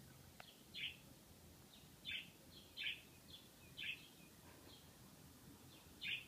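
A small bird chirping: about five short, high chirps spaced irregularly a second or so apart, with fainter chirps between them.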